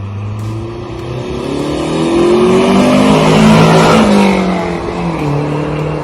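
A car engine accelerating past: its pitch climbs, it is loudest about three and a half seconds in, then the pitch drops away as it recedes.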